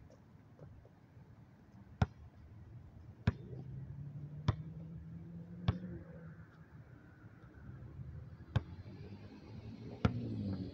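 A basketball bouncing on an outdoor court: six sharp bounces, about one every second or so, with a pause in the middle. A car engine runs in the background and grows louder near the end.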